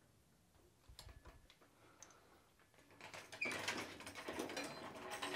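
Steel floor jack being worked and moved on a concrete floor. A few light clicks come about a second in, then louder metallic clattering and rattling from about three seconds in.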